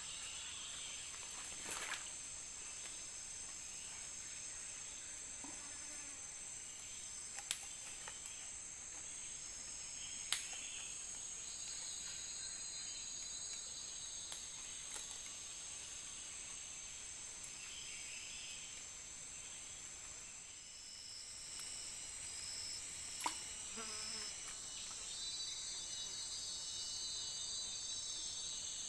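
Steady insect chorus: several high-pitched trilling bands held throughout. About five sharp clicks are scattered through it.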